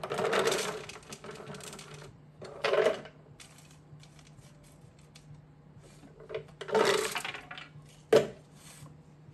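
Hazelnuts poured from a glass jar clattering onto a metal baking tray in three short bursts, with a sharp knock near the end.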